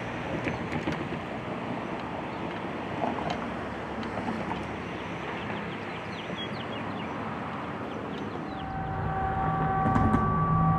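Steady outdoor wind and distant traffic noise with faint bird chirps. About nine seconds in it changes to a steady low hum under a held chord of several higher tones.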